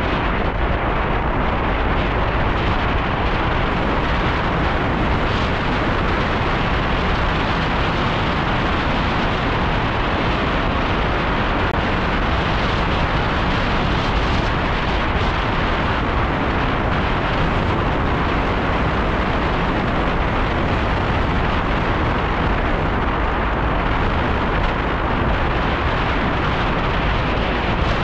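Wind buffeting the microphone of a camera on a moving bicycle: a loud, steady rushing and rumbling noise.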